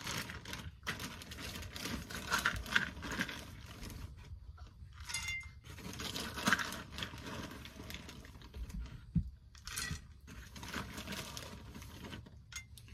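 Irregular rustling and light clicking from close handling, in uneven spurts with short pauses.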